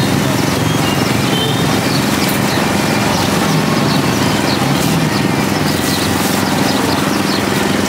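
A motor running steadily with a fast, even pulse, over busy background noise with scattered short high chirps or clinks.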